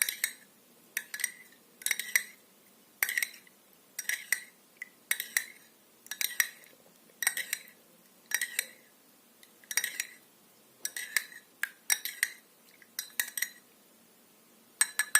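Spoon stirring a drink in a glass, clinking against the side about once a second, often two clinks close together, each with a short bright ring. There is a short pause near the end.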